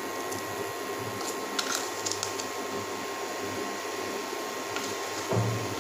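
Steady hiss of a pot of soup simmering on an induction cooker, with a faint steady whine, and a few light clicks in the first couple of seconds as seasoning is sprinkled in.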